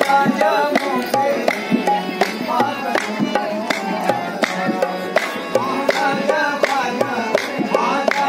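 Live qawwali: a harmonium playing a melody with a man singing, over a steady beat of hand-drum strokes.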